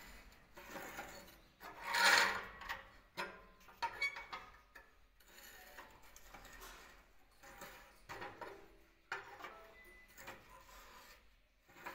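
Hand-operated rebar bender at work: steel rod scraping and knocking against the bender's rollers and the steel tabletop as a stirrup is bent and the bar is slid along. The loudest sound is a harsh scrape about two seconds in, followed by scattered clicks and shorter scrapes.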